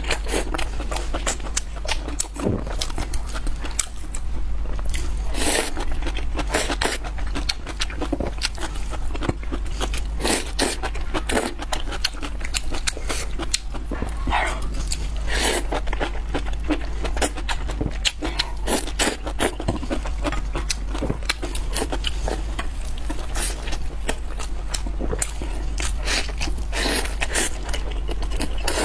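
Close-miked eating: biting and chewing on crunchy food, a dense run of crisp crackles and clicks, over a steady low hum.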